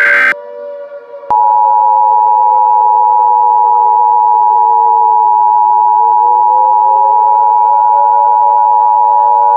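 Emergency Alert System attention signal: a steady two-tone alarm, its tones about 850 and 960 Hz, starting about a second in and holding unbroken. It is preceded by a harsh buzz that cuts off just after the start, with a low drone slowly wavering in pitch underneath.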